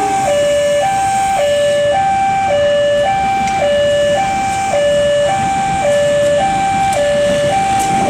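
Railway level-crossing warning alarm sounding a steady two-tone high-low signal, switching pitch about every half second, the warning that a train is approaching and the crossing is closed. Beneath it runs the noise of an approaching diesel locomotive.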